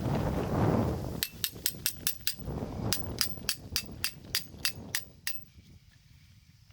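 Wind buffeting the microphone for about a second, then two runs of sharp, evenly spaced clicks, about five a second, that stop a little after five seconds in.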